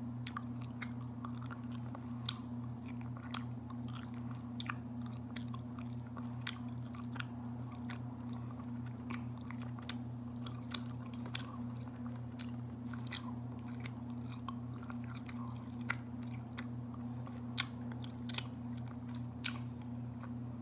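Close-miked mouth sounds of a person chewing raw honeycomb, the sticky wax worked like gum, giving irregular smacking clicks. A steady low hum runs underneath.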